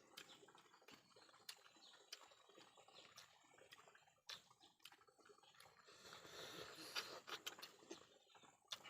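Faint eating sounds: scattered soft mouth clicks and chewing noises, with a slightly louder patch of smacking about six to seven and a half seconds in.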